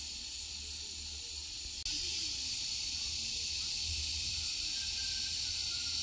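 A steady, high-pitched chorus of insects droning in the surrounding vegetation, with a faint low rumble underneath. The chorus gets louder about two seconds in.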